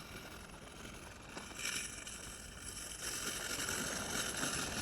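Mammotion LUBA 3 AWD robotic lawn mower driving across the lawn on its electric wheel motors, a quiet whirr and rustle that grows louder about a second and a half in.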